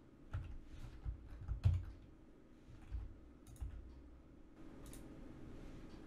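Scattered clicks and taps from a computer mouse and keyboard, about eight in the first few seconds, the loudest just before two seconds in, over a faint steady hum.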